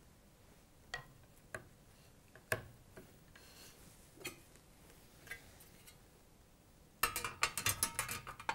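Small metal clicks and taps as a metal cover plate is handled and fitted onto a glass-door lock body: a few scattered single clicks, then a rapid run of louder clicks near the end as the cover is pressed onto the lock.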